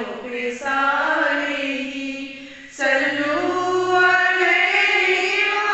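A woman's solo voice chanting a devotional recitation in long held, wavering notes. It fades about two seconds in and comes back strongly with a new phrase.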